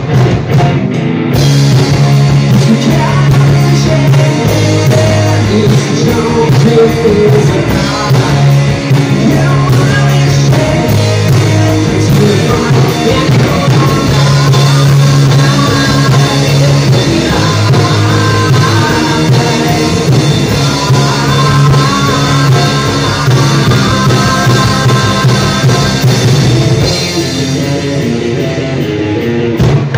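Live rock band playing loud: distorted electric guitars, bass and drum kit with a singer's vocals, heard through the club's PA.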